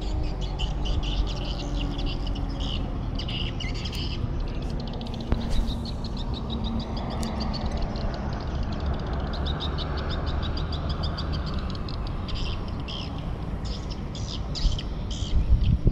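Birds chirping in quick, repeated runs of short high notes over a steady low rumble.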